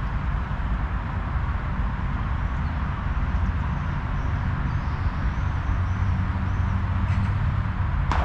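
Wind buffeting the microphone outdoors, a steady gusty rumble, with faint high bird chirps in the middle and two short clicks near the end.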